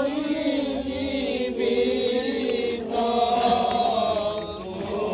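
Several voices singing a slow hymn together, with long held notes that slide slowly from pitch to pitch.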